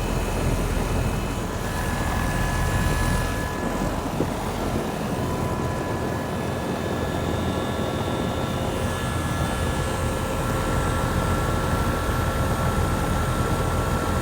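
A 2007 Rheem 1.5-ton R22 air conditioner condensing unit with a reciprocating compressor running steadily, the compressor hum under the rush of the condenser fan, with a few faint steady high tones. The refrigerant pressures are still stabilizing after startup.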